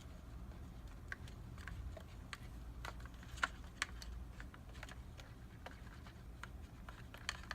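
Light, irregular clicks and taps of a plastic slime stick against a plastic mixing bowl while stirring a clear glue, water and glitter mixture, the two loudest taps a little past the middle.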